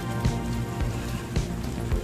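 Background music with a steady beat, over the faint sizzle of jengkol rendang cooking down in a pan.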